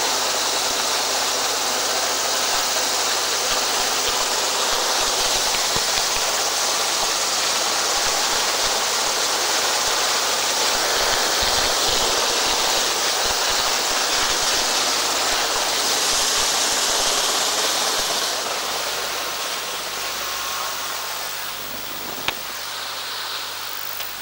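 Steady rush of wind and water noise from an Atlantic 85 inshore lifeboat running at speed, with spray along the hull and wind buffeting the microphone. It eases a little after about 18 seconds, and there is a single sharp knock near the end.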